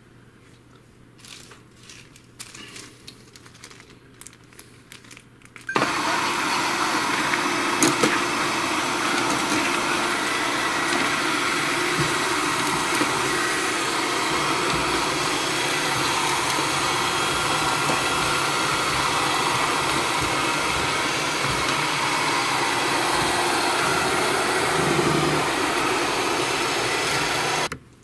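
MAMIBOT robot vacuum cleaner switched on for a test run after reassembly. After a few faint clicks its motors start up suddenly, run steadily and loudly for a little over twenty seconds, then cut off abruptly near the end.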